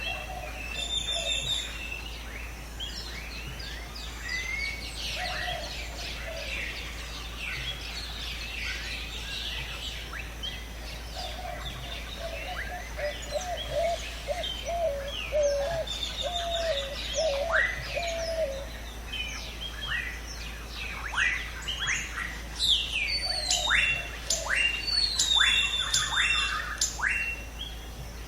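Several birds chirping and calling together in a dense, overlapping chorus. Around the middle a lower, wavering call repeats as a string of short notes, and near the end a run of quick downward-sweeping whistles stands out.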